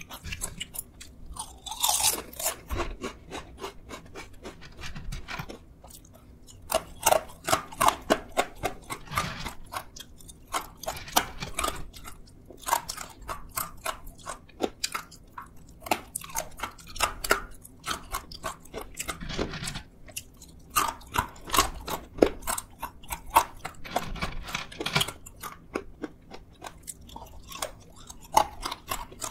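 Close-up crunching and chewing of crisp potato chips and thin fried sweet potato sticks: runs of rapid crackling crunches with short pauses between mouthfuls.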